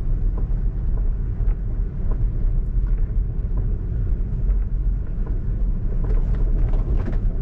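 Tyre and road noise of an electric Tesla rolling along a dirt road, heard inside the cabin: a steady low rumble with scattered light ticks.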